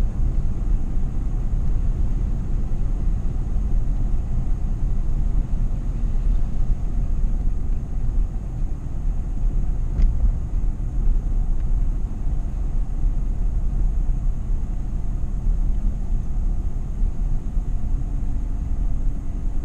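Steady low rumble of a car's road and engine noise heard from inside the cabin, with a single light tick about halfway through.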